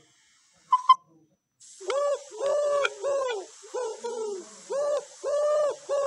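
Recorded pigeon cooing played from an animal-sounds app: a run of short, arched coos, about two a second, over a faint recording hiss, starting about a second and a half in. Shortly before it, a quick, loud double chirp.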